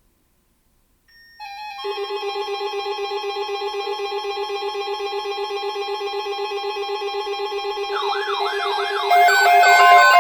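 Electronic alert tones ahead of an emergency alert: after about a second of silence a rapidly pulsing electronic buzz sets in. Warbling, siren-like sweeps join it about eight seconds in, and steady beeps take over near the end.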